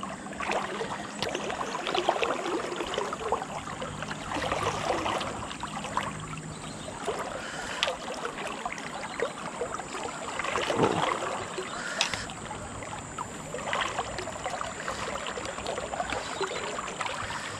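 Shallow river current running steadily, with irregular small splashes and clicks scattered through it.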